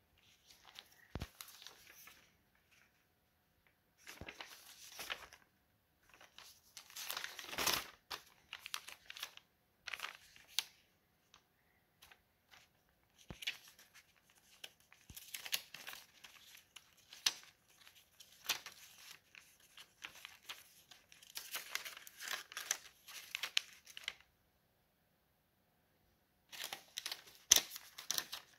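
Paper rustling and crinkling as notebook pages, sticky-note flaps and folded paper foldables are lifted and turned by hand, in irregular bursts with short silent pauses and a few sharp taps, the loudest near the end.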